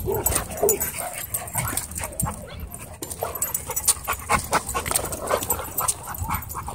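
Several dogs wrestling in rough play, with short, irregular dog vocalisations such as yips and play noises mixed with scuffling.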